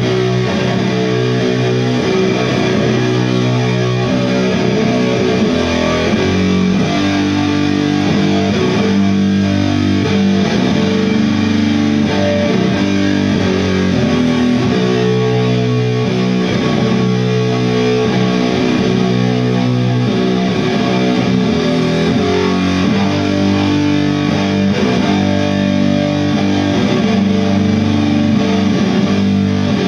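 Doom metal band playing live: heavily distorted electric guitars and bass holding long, loud chords that change every few seconds.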